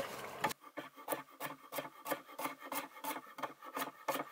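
Kitchen knife chopping lettuce on a wooden cutting board, a steady run of quick strokes at about four a second.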